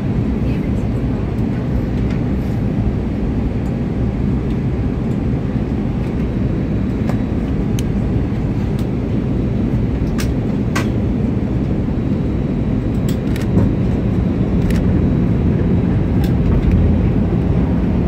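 Steady cabin noise inside an Airbus A319-112 in flight: the hum of its CFM56-5B turbofan engines and the airflow along the fuselage, heard from inside the cabin. It grows slightly louder about two-thirds of the way through, with a few faint clicks and taps.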